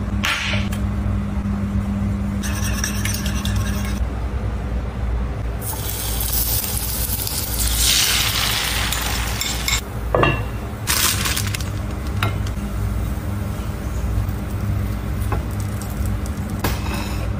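Eggs sizzling as they fry in a hot pan with slices of sausage, with a spoon clinking against the bowl and pan. The hiss swells about eight seconds in, when the eggs go into the pan.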